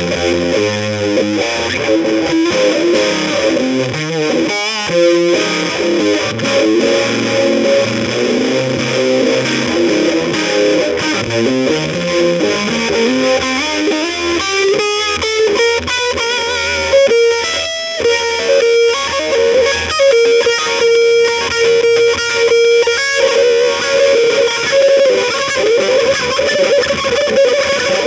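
Instrumental music. About halfway through, a note glides steadily upward and is then held for several seconds before the playing picks up again.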